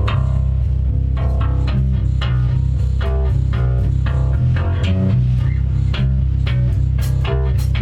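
Bass guitar and guitar playing a riff together without drums, with strong, deep bass notes under repeated plucked guitar notes.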